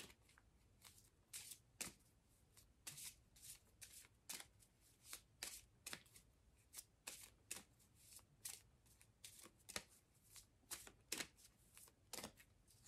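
A deck of angel oracle cards being shuffled by hand: faint, quick card strokes, about two to three a second.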